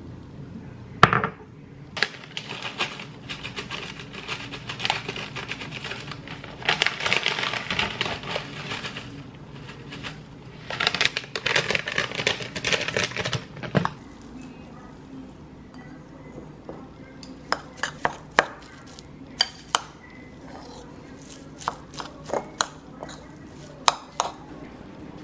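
Crinkling and crackling as dried seaweed is crumbled from its packet over a bowl of rice and egg. About halfway through, this gives way to a spoon clinking and scraping against the ceramic bowl in short sharp strikes as the rice, egg and seaweed are mixed.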